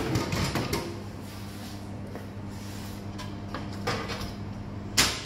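Drink vending machine dispensing a can: a clatter at the start as the can drops into the delivery bin, then the bin's flap is pushed open about four seconds in and snaps shut with a sharp clack about a second later. A steady machine hum runs underneath.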